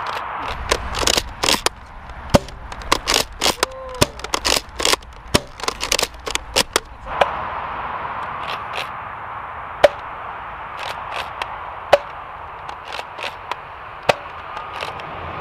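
Sharp plastic clicks and snaps from a Nerf Rival Jupiter bolt-action foam-ball blaster being cycled and fired, coming thick and fast over the first seven seconds, then a few single snaps a couple of seconds apart.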